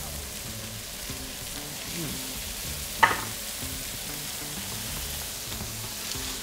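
Yellowfin tuna steaks searing in butter in a hot frying pan, a steady sizzle, with one sharp clink about three seconds in. Background music runs underneath.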